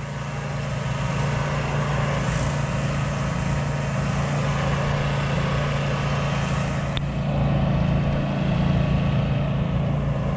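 Pressure washer engine running steadily under the hiss of the wand's spray striking the dome. About seven seconds in there is a click and the spray hiss drops away while the engine keeps running.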